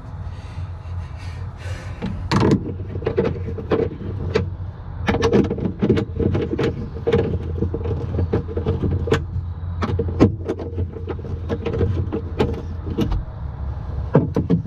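Metal hand tools clicking and clinking irregularly as a socket is worked on bolts, over a steady low hum.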